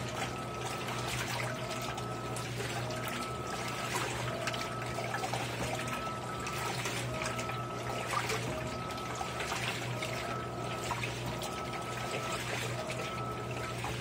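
Electrolux LAI17 17 kg top-load washing machine agitating bath towels in a low water level: water sloshing and churning over a steady motor hum, with a short whine that repeats about once a second as the agitator strokes back and forth.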